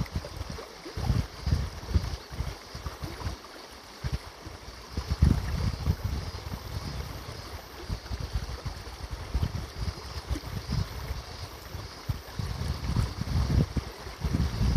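River water flowing with a steady high drone of cicadas over it, broken by irregular gusts of wind rumbling on the microphone, which are the loudest thing heard.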